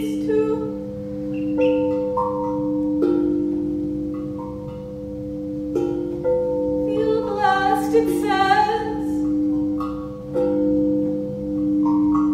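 Crystal singing bowls ringing in several steady, sustained tones that swell and pulse, with bell-like notes struck over them every second or few, in a quick run about seven to nine seconds in.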